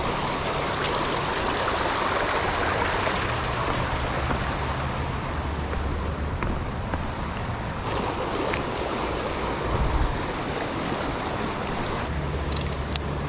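Small river's water rushing steadily, with a few faint clicks.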